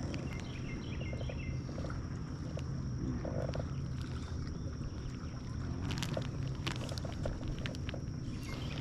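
Boat motor running with a steady low hum and a constant high whine, with scattered small clicks and taps.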